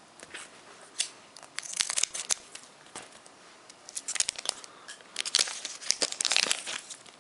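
Foil booster pack wrapper being opened: crisp crinkling and tearing of the wrapper in three short bursts of rustling, about two seconds in, around four seconds and near the end, with the cards handled between them.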